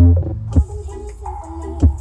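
Electronic dance music played very loud through a horeg sound system, a huge truck-mounted rig. It has a heavy bass and two hard drum hits, about half a second in and near the end.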